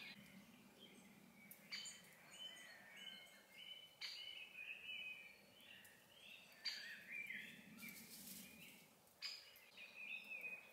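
A woodland songbird singing short, faint, warbling phrases, one every two to three seconds, each opening with a sharp high note.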